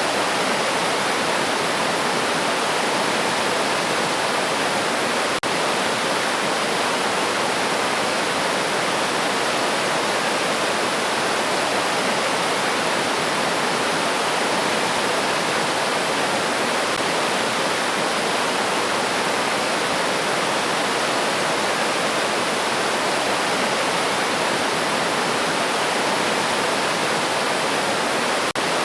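River water rushing, a steady, even rush with no let-up.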